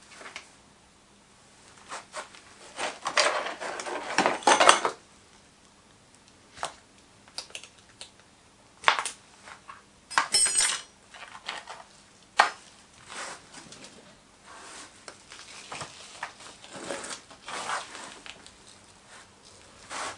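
Irregular metallic clinks, taps and short scrapes of hand tools against a metal moulding flask packed with greensand, busiest about two to five seconds in and again around ten seconds in.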